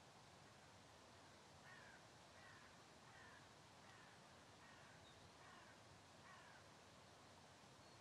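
A crow cawing faintly: a run of seven short, slightly falling caws about three quarters of a second apart, starting a couple of seconds in, over a faint steady hiss.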